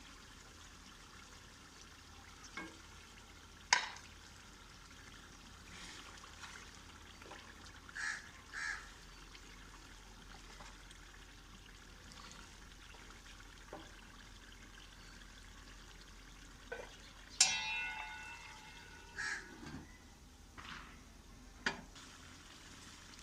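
A pot of chicken pota and potato curry cooking with a faint sizzle while spices are added and stirred in: scattered clicks of a spoon against the pot and one loud metal clang about seventeen seconds in that rings on for about a second.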